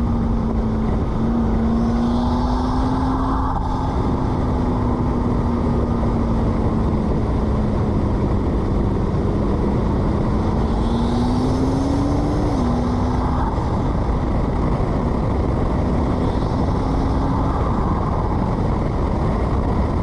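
McLaren MP4-12C's twin-turbo V8 running on the move over steady road noise. Its note holds fairly even, climbs a little past halfway and then drops suddenly, as on a lift-off or gear change. Three brief turbo hisses come through along the way.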